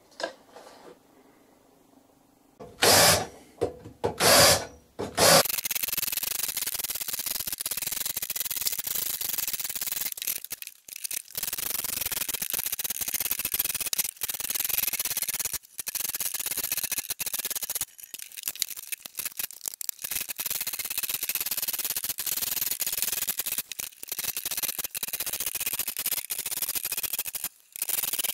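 Cordless drill drilling holes through aluminium angle: three short loud bursts, then near-continuous drilling broken by a few brief pauses.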